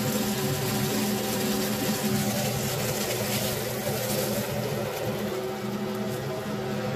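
Steak sizzling in a frying pan of hot butter and fat, a dense steady crackling hiss over a steady low hum. A few light clicks around the middle as metal tongs grip and lift the steak.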